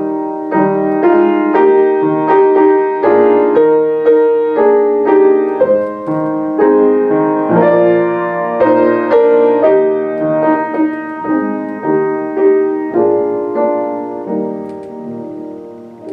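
Solo piano playing slow chords, each struck and then fading. A final chord rings out and dies away near the end.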